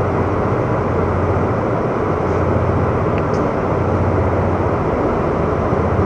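Steady low rumble of a harbour tug's and a ship's diesel engines working as the vessels manoeuvre, with a constant low hum under it.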